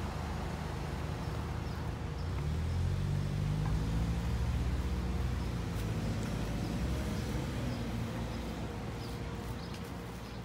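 A car engine running with road noise, swelling in level around three to four seconds in and then easing off.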